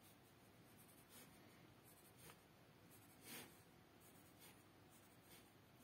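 Faint pencil strokes on paper: a few short, separate scratches as small dashes are marked along a drawn line, the clearest about three seconds in.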